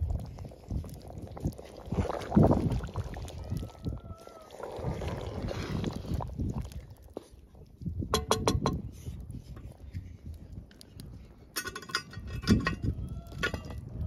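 Gusty low rumble of wind on the microphone outdoors over a steaming cast-iron camp oven, with clusters of light metallic clicks about eight seconds in and again near the end, as a utensil knocks against the pot.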